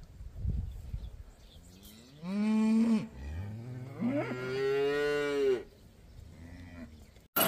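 Cattle mooing. A short rising moo comes about two seconds in, then a longer moo, overlapped by a second, deeper moo.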